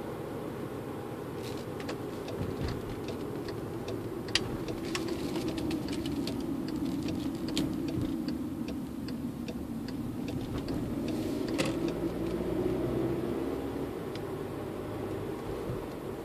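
Interior noise of a Volkswagen Jetta Hybrid on the move: a steady mix of road noise and the loud ventilation blower, with scattered light clicks and ticks through the first two-thirds. A low drone swells a little about two-thirds in.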